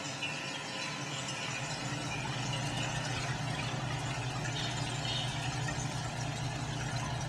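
Steady hiss of water spraying and falling inside a glass rain enclosure, over a steady low hum, with faint high chirps.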